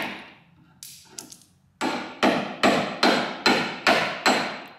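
Hammer striking a chisel held against a car's steel front guard, chipping out thick old body filler. A strike at the start and two light taps about a second in, then seven hard blows at an even pace of about two and a half a second, each ringing briefly.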